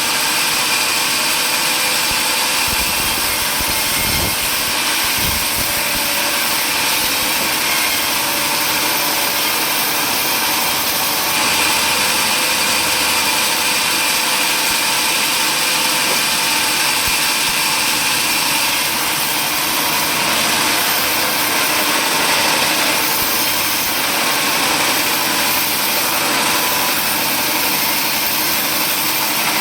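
Power saw machinery running steadily, a loud even hiss with a high steady whine, its tone shifting slightly about eleven seconds in.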